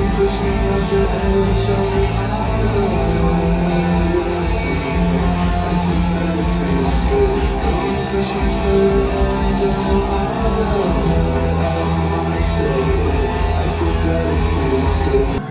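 Guitar-led rock music from a band: strummed guitar over a steady bass line, cutting off abruptly near the end.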